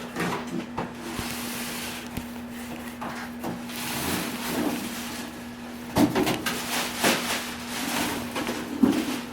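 Cardboard box scraping and rustling as a cordless wet/dry shop vac is worked out of its packaging, with several knocks and bumps from about six seconds in.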